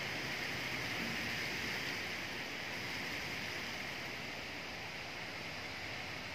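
Wind rustling through tree leaves: a steady, even hiss that swells slightly and eases off again.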